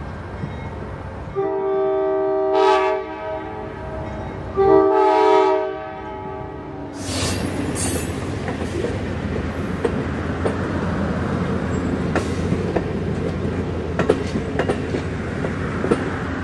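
Train horn sounding two long blasts, a few seconds apart, then a passenger train's coaches rolling past close by: a steady rumble with the wheels clicking over the rail joints.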